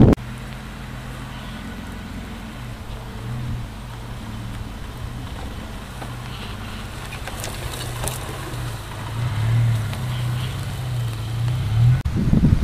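SsangYong Musso's 3.2-litre six-cylinder petrol engine running at low revs as the SUV crawls over rough ground, a steady hum that swells and dips and grows a little louder towards the end. Just before the end it gives way to louder rustling noise.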